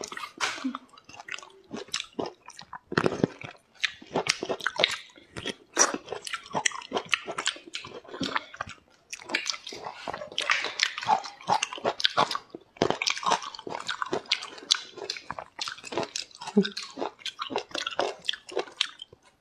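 Close-miked chewing and biting of juicy fruit: quick, irregular wet crunches and mouth smacks.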